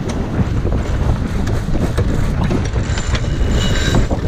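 Wind buffeting the microphone and water rushing along the hull of a J/111 sailboat under way, with scattered short clicks and knocks from the boat's gear.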